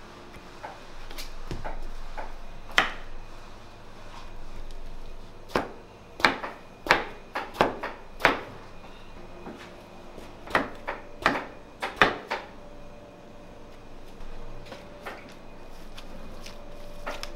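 Kitchen knife slicing through eggplants and knocking on a cutting board: a run of sharp chops, several close together in the middle stretch, with pauses between.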